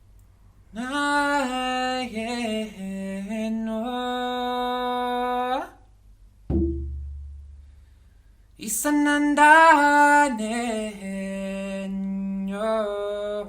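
Wordless 'light language' singing: held, sliding notes in two long phrases, with a single low drum beat ringing out in the gap between them.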